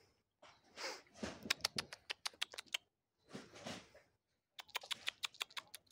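Red squirrel chattering in two runs of rapid, sharp clicks, each lasting over a second, with soft rustling in between.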